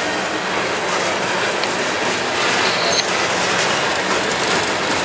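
Herzog ballast hopper cars of a Norfolk Southern freight train rolling past: a steady clatter of steel wheels on the rails, with a brief high-pitched wheel squeal about three seconds in.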